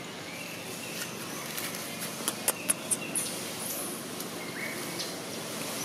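Outdoor ambience, a steady hiss with a few faint high chirps, and about two and a half seconds in a quick run of four or five sharp crackles: dry leaves crunching as the macaques move over the leaf litter.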